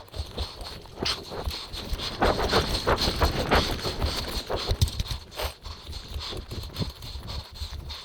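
Footsteps and gear rustling as a player moves on foot, with irregular knocks and a low rumble.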